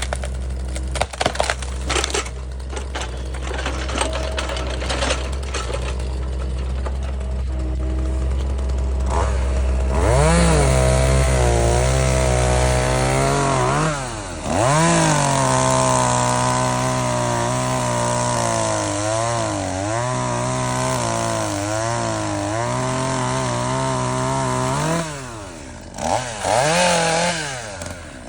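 Chainsaw running and revving, starting about ten seconds in. It drops back briefly twice and revs up again near the end. Before it starts there is a low steady engine hum with scattered clicks and knocks.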